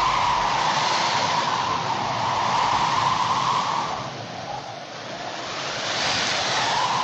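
A steady rushing noise, strongest in a mid-pitched band. It fades for about a second roughly four seconds in, then swells back.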